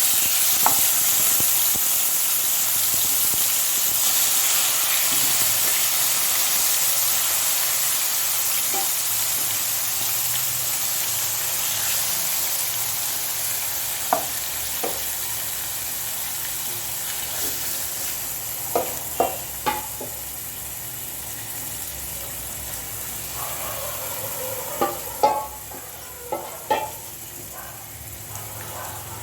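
Pieces of boneless chicken sizzling loudly in hot oil in a pan. The sizzle starts suddenly as they go in and slowly dies down. A few sharp clicks come from about halfway on as the chicken is stirred.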